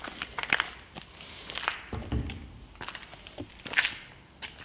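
Scattered light taps and clicks, with a dull thump about two seconds in and a brief scraping rustle near the end: a person moving about and handling an applicator and gear at the car.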